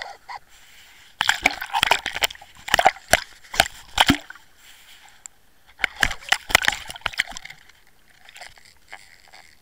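Water sloshing and churning against an underwater camera's housing as a pike thrashes with a lure in its mouth. There are sharp knocks and rattles in two bouts, one from about a second in to four seconds and another around six to seven seconds.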